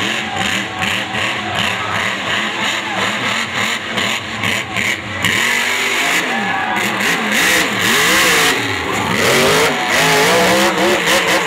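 Mud truck engine revving hard, its pitch swinging up and down again and again in the second half as the throttle is worked.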